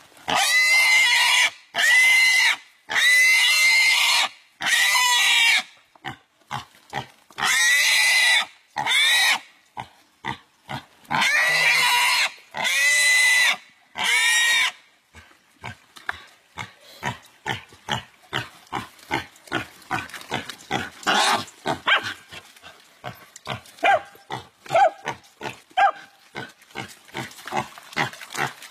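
A pig squealing in distress as two dogs bite and hold it: about ten long, loud screams, each rising and falling in pitch. After about fifteen seconds the squeals stop and give way to a fast run of short, quieter pulses, about three a second.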